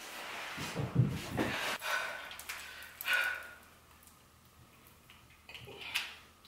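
Movement and handling noises as a person gets up off the floor: scuffling, with a dull thud about a second in, then a few small knocks and a short sound near the end.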